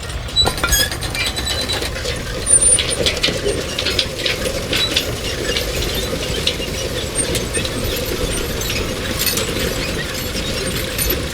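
Machinery running steadily with many irregular clicks and rattles.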